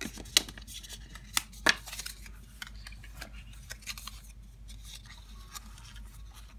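Hands handling a wrapped-cardboard pen presentation box: sharp taps and clicks as the hinged lid is opened, loudest in the first two seconds, then lighter rustling and scraping of card and paper inside the box.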